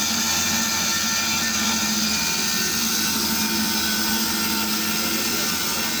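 Log band sawmill running steadily, a constant machine drone with a steady high hiss and no change in pitch.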